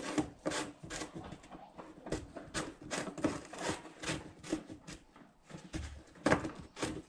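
Plastic screw cap on a liquid fertilizer jug being twisted and worked by hand: an irregular run of short scraping clicks, with the loudest one about six seconds in.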